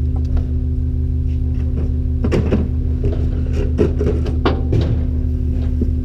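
Garbage truck's diesel engine idling steadily, a low hum, with scattered light clicks and knocks about two to five seconds in.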